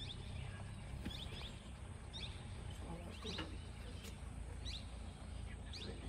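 A bird calling over and over with short, high, falling notes, roughly one a second, over a steady low rumble.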